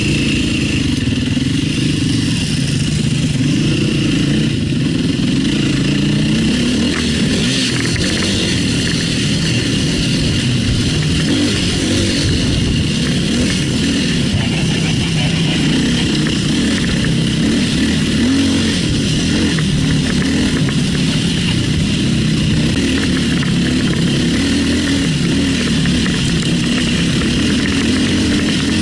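Enduro motorcycle engine running hard on an off-road climb, its revs rising and falling over and over.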